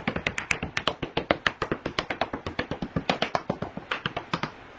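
A rapid run of sharp taps, about eight a second, that stops near the end.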